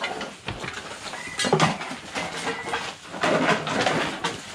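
Rubbish being rummaged through and stuffed into a woven sack: plastic bags and odds and ends rustling and clattering, loudest about a second and a half in.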